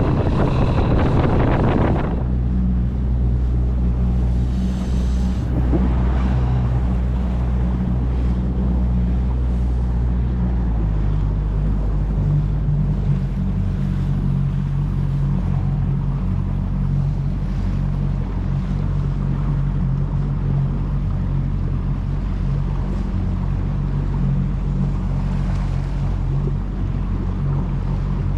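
A boat's motor running steadily with a low, even drone; its note shifts slightly about ten seconds in. Wind buffets the microphone for the first two seconds.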